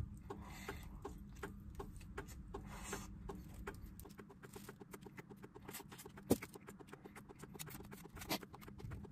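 Chewing and lip-smacking while eating roast chicken by hand: a run of small, irregular wet mouth clicks, with a sharper click about six seconds in.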